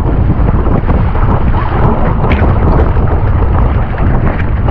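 Strong wind buffeting the microphone: a loud, uneven rumble, with a few sharp ticks, one about two seconds in.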